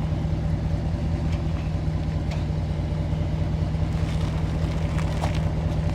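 A vehicle engine idling steadily with an even low throb, with a few faint light clicks over it.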